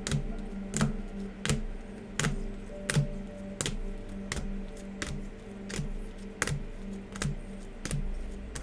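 Rigid plastic card toploaders clicking against one another as trading cards are flipped through a stack, one sharp click about every 0.7 s. Quiet music plays underneath.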